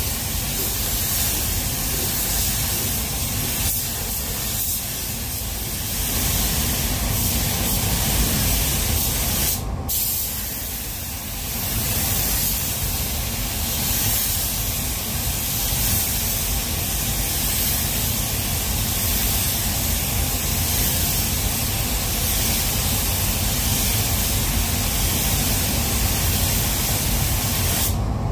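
Gravity-feed automotive spray gun hissing steadily as compressed air atomizes clear coat onto a car's body panels, with a brief break about ten seconds in and a cut-off near the end as the trigger is released. A steady low rumble runs underneath.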